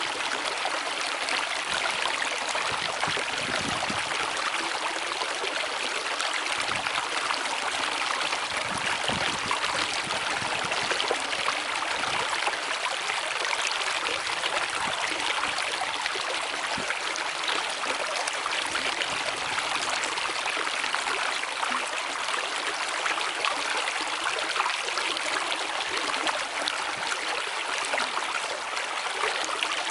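Steady rushing of stream water, an even, unbroken wash of sound.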